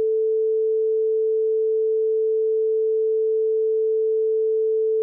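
A steady, unbroken censor tone, a single mid-pitched beep, laid over a recorded 911 call to mask redacted speech.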